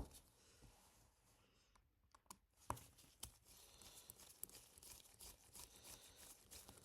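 Faint, scattered small clicks and ticks of a precision Phillips screwdriver working tiny screws out of an iPhone 2G, with one sharper click a little under three seconds in.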